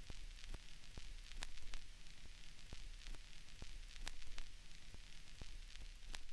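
Vinyl record surface noise: faint hiss and crackle with irregular sharp pops, over a steady low hum.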